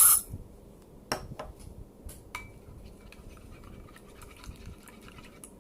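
An aerosol air-freshener spray hiss cuts off right at the start, then scattered light clinks and scrapes of a utensil stirring slime in a bowl.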